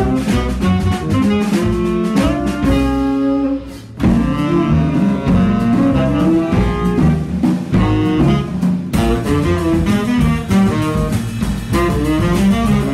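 Live jazz quartet: two tenor saxophones playing lines over double bass and drum kit. The band drops out briefly just before four seconds in, then comes back in full.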